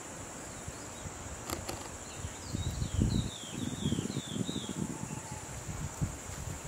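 Insects buzzing steadily in the background, with a bird giving a run of about six short, falling chirps in the middle. Low gusts of wind buffet the microphone from about two seconds in.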